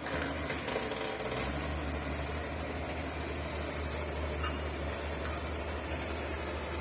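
Shantui bulldozer's diesel engine running steadily with a low, even drone.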